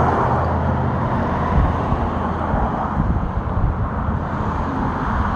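Road traffic noise: a steady low rumble of engines with a rushing hiss over it.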